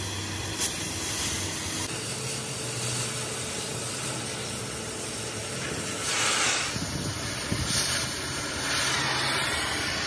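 Oxy-fuel gas cutting torch hissing steadily as it cuts steel, louder for a moment about six seconds in and again near the end.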